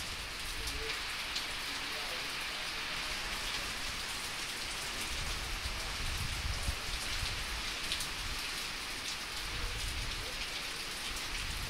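Steady rain falling, an even hiss with a few sharp ticks of drops.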